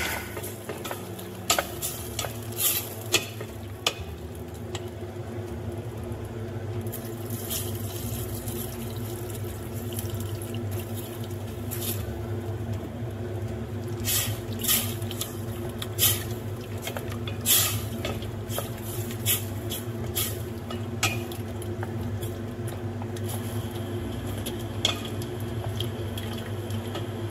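A spatula stirring chicken stock into a pot of sautéed vegetables and flour: liquid sloshing, with scattered clicks and scrapes of the spatula against the pot, over a steady low hum.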